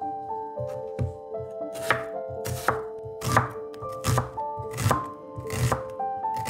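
Knife cutting vegetables on a cutting board in steady strokes, about one crisp cut every 0.7 seconds, over background music with sustained melodic notes.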